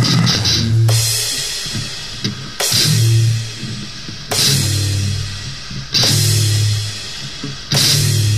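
Slow, heavy metal passage: the full band hits five times, about every 1.7 seconds, a low distorted guitar chord with bass drum and crash cymbal struck together, each chord left to ring and fade before the next.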